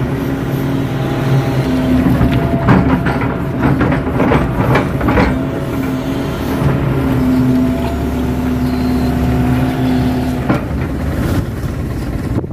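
KATO tracked excavator's diesel engine running steadily under hydraulic load, heard from the cab, its pitch sagging and recovering a little as the arm works. Repeated knocks and clanks come through as the bucket pats and scrapes the wet mud of the pond bank.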